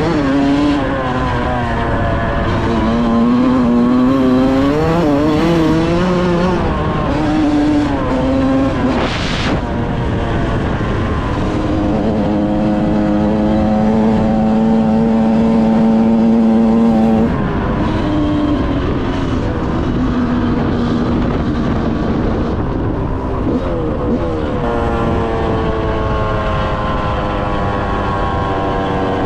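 Yamaha YZ125 dirt bike's single-cylinder two-stroke engine revving up and down under riding, its pitch rising and falling with the throttle. A high steady note is held for several seconds near the middle.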